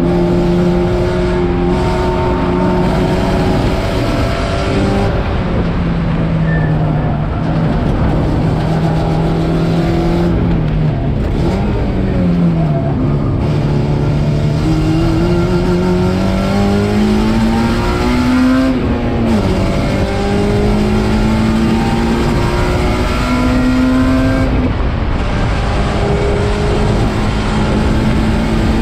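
Race car engine running hard on track over steady wind and road noise. Its pitch dips about 12 seconds in, climbs steadily for about six seconds and drops sharply near 19 seconds, as when the driver lifts for a corner, accelerates out and shifts up a gear.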